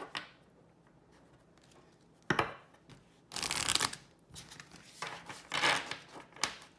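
A deck of Ancestral Oracle of the Celts clan cards being shuffled by hand: quiet at first, then a sharp tap about two seconds in, followed by three bursts of shuffling.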